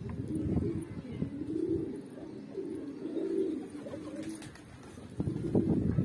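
A flock of Pakistani high flyer pigeons cooing, several low coos overlapping one after another, with a louder round of cooing near the end.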